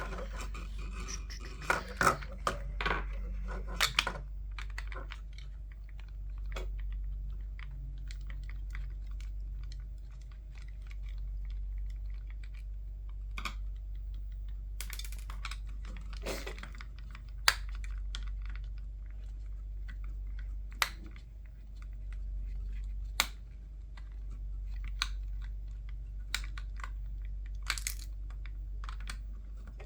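Scattered clicks, taps and plastic crackles of small headset parts being handled and pried apart, with several sharp clicks close together in the first few seconds and single clicks every second or two after, over a steady low hum.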